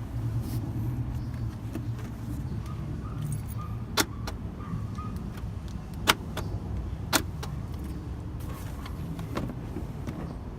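Car door lock actuators clicking as the locks are worked: a quick pair of sharp clicks about four seconds in, then single clicks about two and three seconds later, over a steady low hum.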